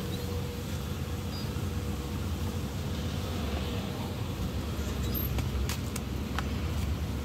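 Steady low rumble, with a few sharp crinkles between about five and six and a half seconds in as a plastic Maggi noodle packet is torn open.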